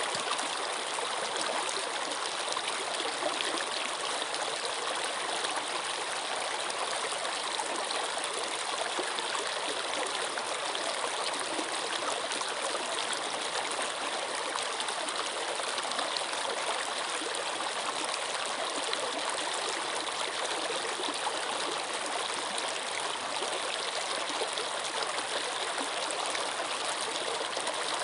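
Running water flowing steadily, an even, unbroken rush with no pauses or changes.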